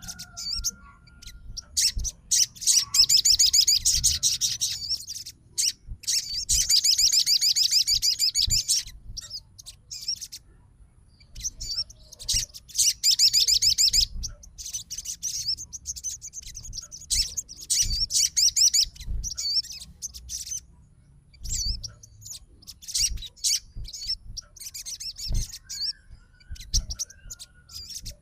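A sogon (crimson sunbird) singing: rapid, high-pitched trilling chirps in long bursts of a few seconds, then shorter broken phrases. Soft low thumps run underneath.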